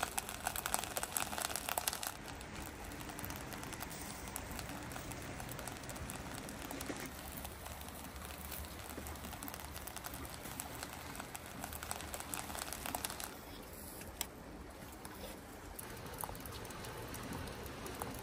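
Heavy rain falling steadily, a dense patter of drops, a little louder in the first couple of seconds.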